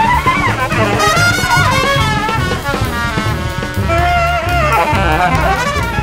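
Jazz band playing, with a trumpet and a saxophone carrying wavering melodic lines over a low bass line.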